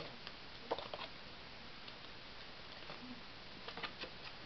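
A few light clicks and taps of a thin card being handled and turned over, one cluster about a second in and another near the end, over faint room hiss.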